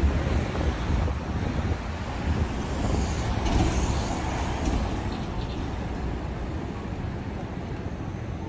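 City street traffic noise: a steady rumble of passing cars, with one vehicle going by more loudly about three to four seconds in.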